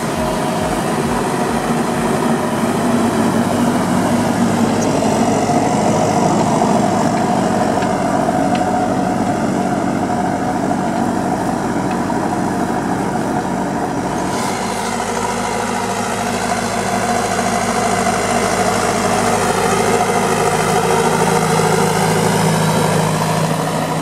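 Valtra N122 Versu tractor's diesel engine running steadily under load while pulling a Kverneland four-furrow plough. The sound changes about halfway through.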